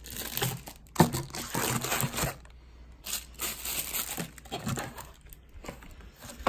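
Camera-gear packaging being unwrapped by hand: irregular crinkling and tearing with sharp clicks, busiest in the first couple of seconds and again in the middle.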